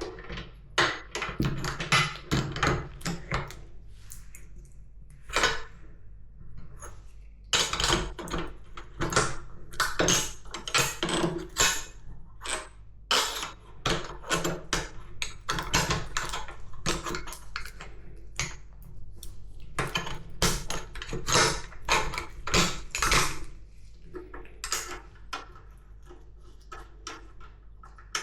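Metal parts and hand tools clinking and knocking as they are handled and fitted during motorcycle assembly, in irregular clusters of sharp clicks, fewer and fainter near the end, over a low steady hum.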